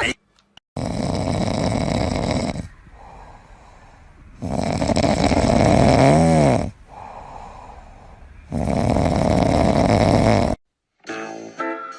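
A dog snoring loudly: three long snores about four seconds apart, with quieter breaths between.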